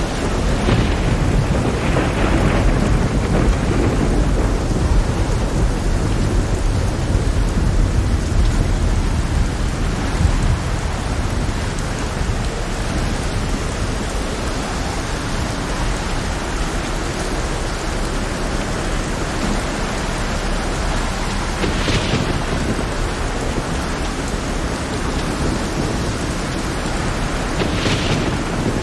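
Heavy rain pouring steadily with rolling thunder, the deep rumble strongest in the first ten seconds or so. Two short hissing surges come near the end.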